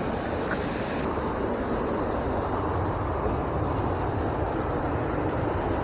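Steady rushing of a river running high and fast, swollen by heavy rain.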